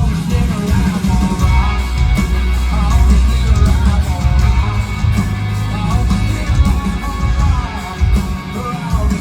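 Live rock band playing loudly, with heavy bass notes and drums under electric guitar.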